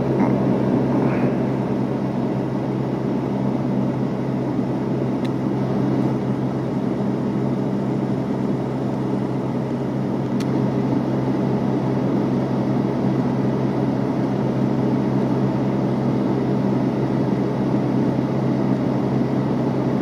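Vehicle engine idling: a steady low hum with no change in pitch, and a faint click about ten seconds in.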